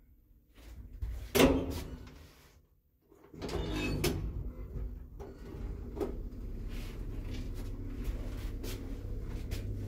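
Old ZREMB passenger lift: the hinged landing door shuts with a loud clunk about a second and a half in. After a short silence the lift starts with a clatter and runs on with a steady low motor hum and occasional clicks as the car travels up the shaft.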